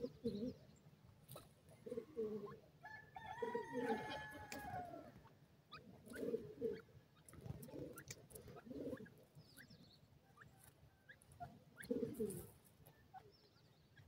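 Grey francolins giving short, low clucking calls every couple of seconds while they forage, with light clicks of pecking in dry soil. A higher, drawn-out wavering call comes about three to five seconds in.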